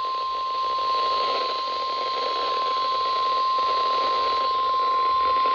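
Weather-radio warning alarm tone: a single steady 1050 Hz tone held unbroken, with radio static hiss behind it. It is the attention signal that announces a warning broadcast.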